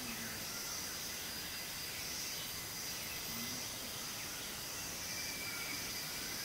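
Outdoor insect chorus, a high buzz that swells and fades, over a steady hiss.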